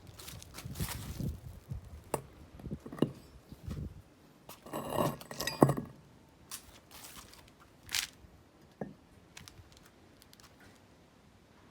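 Irregular clinks, knocks and rattles of small hard objects being handled, with a brief metallic ringing about five seconds in.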